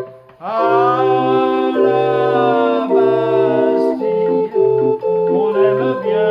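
Crank pipe organ (orgue de Barbarie) playing an instrumental passage between sung lines. After a brief drop-out it swells back in about half a second in, its notes sliding up to pitch, with long held chords over a bass note about once a second, then a quicker run of melody notes from about four seconds in.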